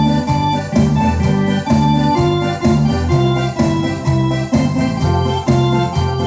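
Electronic keyboard played with an organ-like voice: held chords over bass notes, changing in a steady pulse about twice a second, sounding through a large external speaker box.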